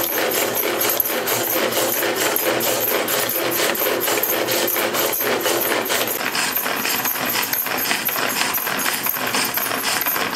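Pigeon pull-cord hand chopper worked with quick, repeated pulls of its cord: a continuous rapid clicking as its blades spin through milk and banana.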